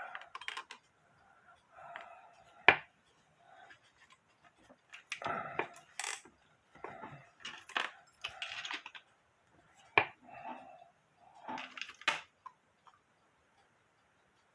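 Small metal clock parts being handled: scattered clicks, taps and light clatter, with a few sharper knocks about three seconds in, near ten seconds and at twelve seconds.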